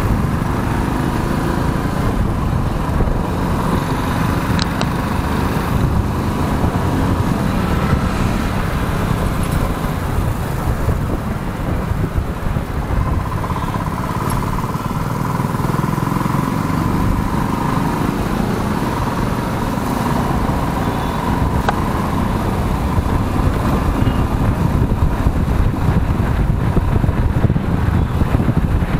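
Motorcycle ride through city traffic, heard from the bike: the engine and road noise run steadily under a heavy low rumble.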